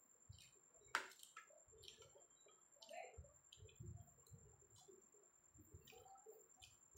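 Faint eating sounds: a spoon and fork clicking and scraping against a ceramic plate and soup bowl, with soft mouth and chewing noises between, and one sharper clink about a second in.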